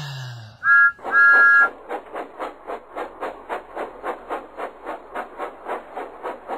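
Steam locomotive whistle, a short toot and then a longer blast, followed by steady chuffing at about four puffs a second as a train of trucks passes.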